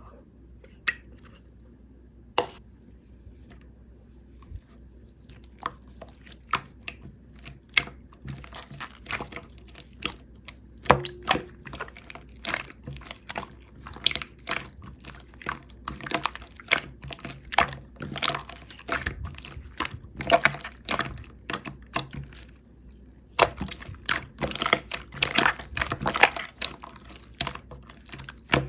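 Close-miked eating of Lotus-biscuit ice cream: a few isolated clicks at first, then a dense run of sharp crackly mouth and crunching sounds from about a third of the way in.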